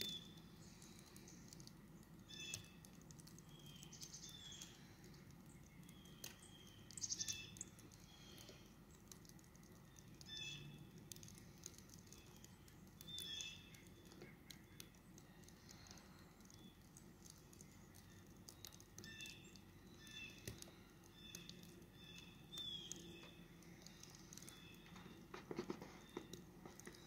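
Near-quiet winter outdoors with faint, scattered short chirps of small birds, and a few soft scuffs, the loudest about a quarter of the way in and again near the end.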